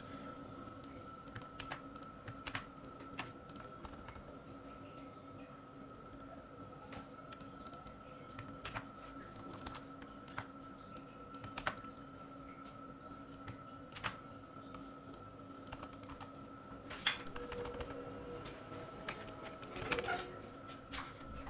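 Computer keyboard typing: scattered, irregular keystrokes while code is edited, over a faint steady hum.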